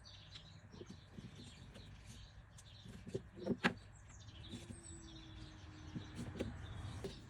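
Hand rivnut tool setting an M6 rivnut in sheet metal: faint scattered clicks, with two louder knocks a little over three seconds in.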